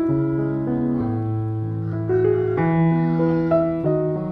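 Background music: a slow piano melody over held chords.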